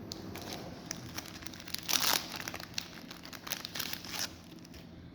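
Foil wrapper of a Magic: The Gathering booster pack being torn open and crinkled, with a louder burst of crinkling about two seconds in.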